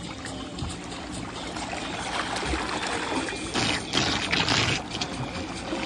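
Pool water splashing and churning around a swimmer riding a Sublue twin-thruster underwater scooter near the surface, with a louder stretch of splashing a little past the middle.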